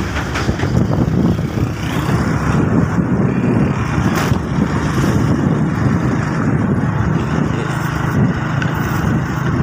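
Motorcycle engine running steadily while riding, mixed with heavy rumbling wind noise on the microphone.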